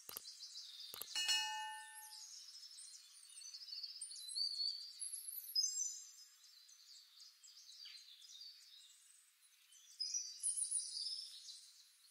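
A click, then a bright chime-like ding about a second in that rings out and fades within a second, the sound effect of an animated subscribe-button click. Under it and on through, birds chirping and whistling, high and quick, in bursts that swell and fall off.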